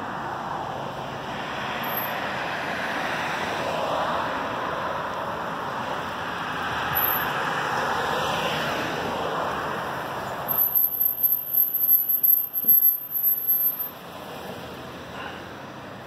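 Road traffic on a wide city street: cars passing, their tyre and engine noise swelling and fading. About ten seconds in the traffic noise drops away and a thin, high, steady whine sounds for about three seconds.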